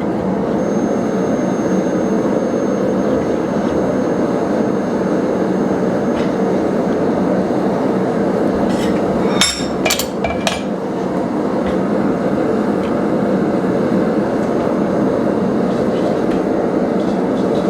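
A loud, steady rushing noise from running shop equipment. About nine and a half seconds in comes a quick run of three or four sharp metal clinks.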